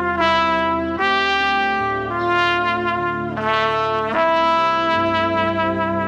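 Trumpet playing a slow melody of long held notes, changing pitch about once a second, over an accompaniment with a bass line moving underneath.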